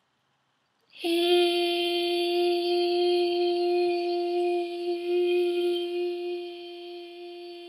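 A woman chanting a long "hee" on one steady held note, starting about a second in and easing off slightly near the end.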